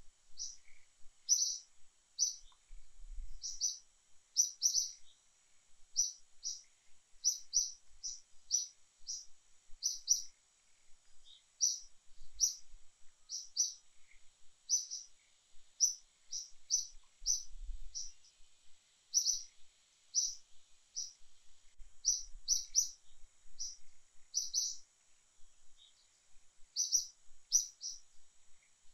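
A small bird calling over and over: short, high chirps, singly or in quick runs of two or three, about every second, over a faint steady high whine.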